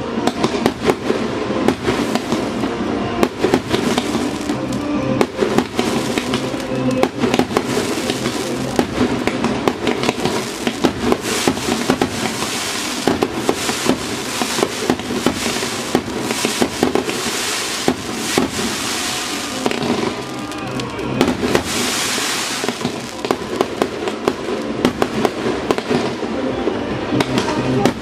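Aerial fireworks display: a continuous run of shell bursts, bangs and crackle, many reports a second, at their densest through the middle.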